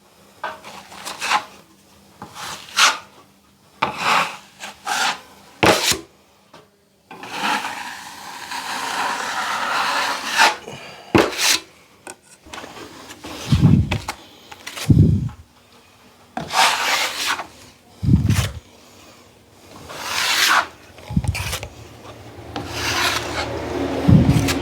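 A drywall knife scraping wet cornice cement across a ceiling patch: a series of short scraping strokes, with one long stroke of about three seconds near the middle. Dull knocks come in among the strokes in the second half.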